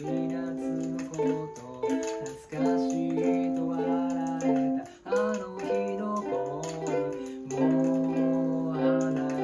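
A ukulele strummed in chords by a beginner still practising, the chords changing every second or so, with a man singing along in a low voice.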